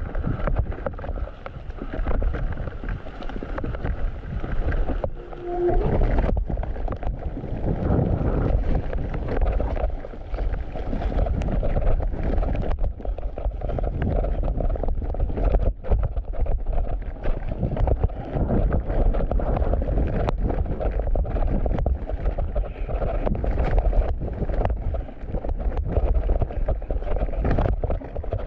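A mountain bike riding down a dirt trail: a steady rush of tyre and air noise, broken by frequent knocks and rattles as the bike goes over roots and bumps.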